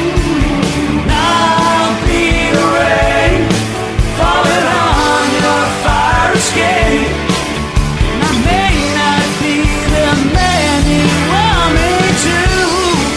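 A rock band playing: drums and bass under a lead line that bends in pitch.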